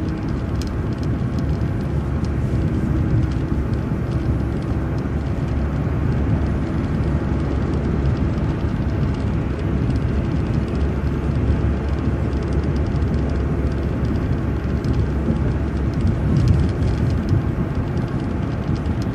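City transit bus driving along the road: a steady rumble of engine and road noise, with a faint steady hum.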